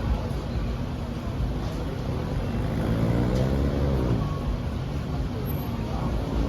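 Road traffic on a beach-front street, with a steady rumble of engines and tyres. One vehicle's engine swells and bends in pitch as it passes, loudest a little past the middle.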